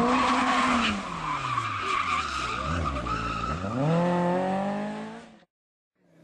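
Rally car engine running hard with tyre skid noise for about the first second. Its note then falls away as the car slows, and rises again about three and a half seconds in as the car accelerates. The sound fades and cuts out near the end.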